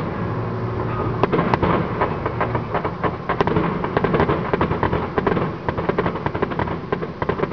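Fireworks display: a rapid, continuous stream of bangs and crackling pops from bursting shells.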